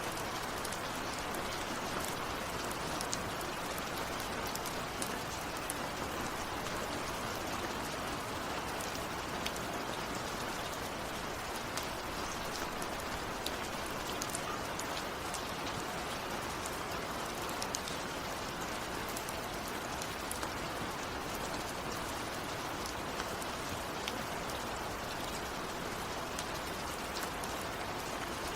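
Steady rain falling, with the dense hiss of rain on a surface and many fine individual drop ticks.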